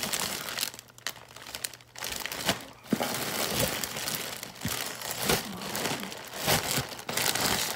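Plastic packaging crinkling in irregular bursts as a sherpa jacket is unwrapped and pulled out of its bag.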